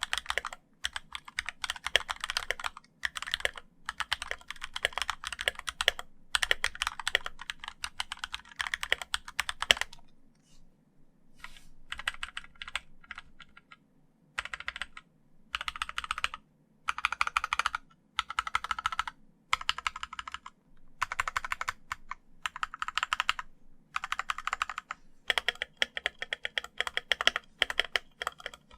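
Typing on a Keychron K2 75% mechanical keyboard with red linear switches: bursts of rapid keystrokes with short pauses between them, thinning to sparse, quieter presses for a few seconds about a third of the way in.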